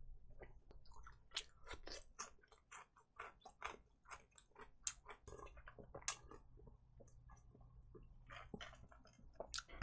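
Close-up chewing of a crispy fried chicken drumstick coated in corn-soup seasoning powder: a quick run of small crunches and crackles that thins out after about six seconds.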